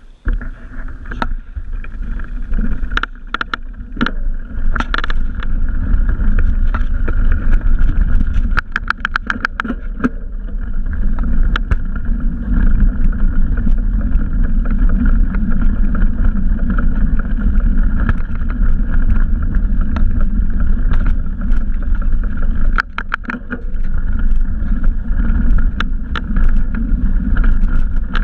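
Bicycle riding over a dirt trail, picked up by a helmet or bike-mounted action camera: a steady rumble of tyre noise and wind on the microphone, broken by sharp clicks and rattles from the bike over bumps, including a quick run of them about nine seconds in and a cluster near the end.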